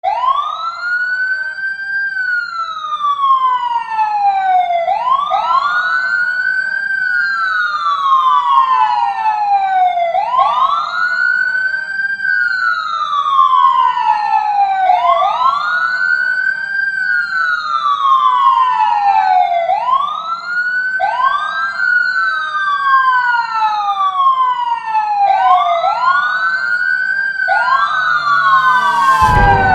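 Electronic wailing siren sounding the earthquake drill alarm: each wail rises quickly, then falls slowly, repeating about every five seconds. In the last third a second, slightly offset wail overlaps it.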